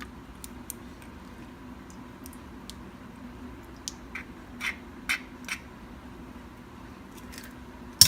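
Light clicks and taps of eggshells and a bowl while eggs are separated by hand, a handful of them about halfway through, over a faint steady hum.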